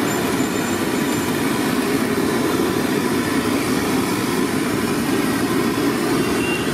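Steady low roar of a gas stove burner firing under a frying kadai, unchanging throughout.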